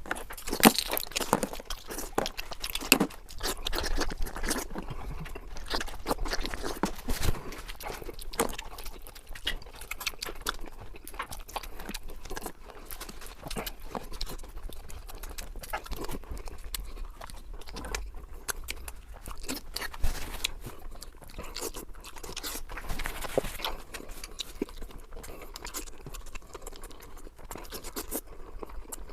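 Close-miked eating sounds: chewing with irregular crunches and short clicks and smacks throughout, loudest in the first few seconds.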